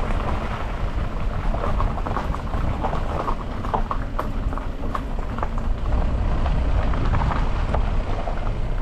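A car rolling along a rough gravel track: a steady low rumble with stones crunching and knocking under the tyres.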